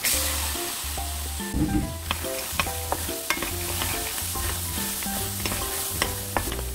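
Drained white soybeans hitting a hot dry pan and sizzling, the hiss rising sharply at the start, then stir-fried with a wooden spatula, the beans clicking and rattling against the pan under a steady sizzle.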